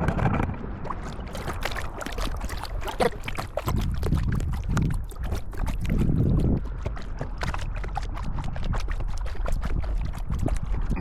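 Kayak paddle strokes in water: many small splashes and drips from the paddle blade, over a low uneven rumble.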